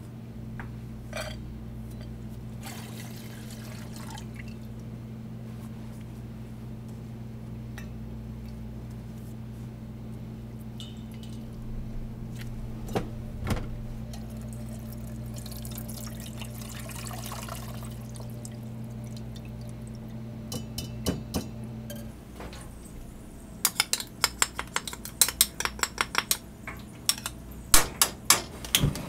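Kitchen food preparation: a few knocks of a cleaver mincing garlic on a cutting board early on, then sauce poured through a mesh strainer about halfway, over a steady low hum that stops after about 22 seconds. Near the end comes a quick run of loud sharp clicks and knocks.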